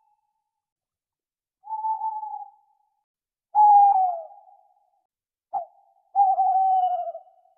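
An owl calling: four separate whistled hoots, each under about a second and sliding slightly down in pitch. The loudest comes about halfway through, followed by a short one and then a longer one.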